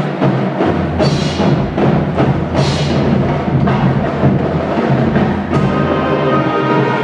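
High school marching band playing live, led by its percussion: a dense drum and mallet groove with strong accented hits, then held band chords coming in about five and a half seconds in.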